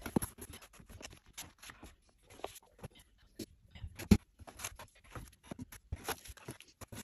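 Cardboard box being opened and its contents handled: scattered rustles, scrapes and small knocks of cardboard flaps and packed items, with one sharper knock about four seconds in.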